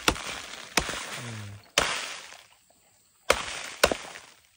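A large knife chopping into a chunk of dry earthen termite nest, about five sharp blows, each followed by a brief crumbling of soil as the nest breaks apart.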